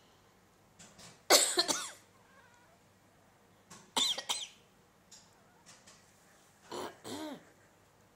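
A person coughs hard twice, about three seconds apart. Near the end a sleeping cat answers with a quieter two-part meow whose pitch rises and falls.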